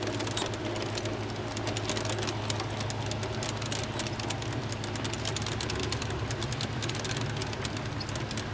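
G-scale model freight cars rolling past on garden railway track, with rapid, irregular clicking and rattling of wheels on the rails over a steady low hum.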